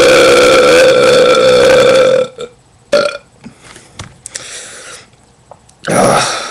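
A long, loud, deliberate burp held at a steady pitch, cutting off about two seconds in. A short loud burst follows about a second later, and another short loud sound comes near the end.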